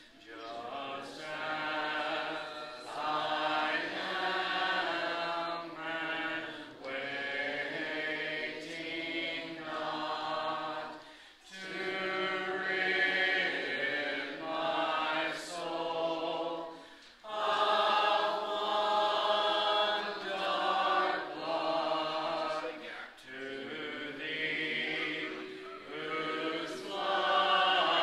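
Congregation singing a hymn a cappella in parts, with long held notes and brief breaks between phrases.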